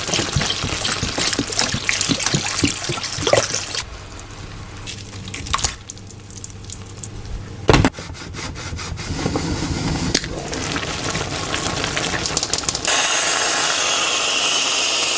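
Kitchen cooking noises: crackling and clattering, a sharp thump about midway, then a loud steady rush of water for the last couple of seconds that cuts off suddenly.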